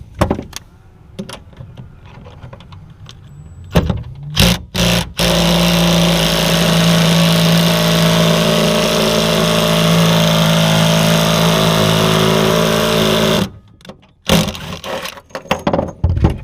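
Power drill running steadily for about eight seconds at one even pitch, then stopping abruptly, as it tightens a rivet nut into the sheet-metal truck bed. A few sharp knocks from the tool being fitted come just before it starts.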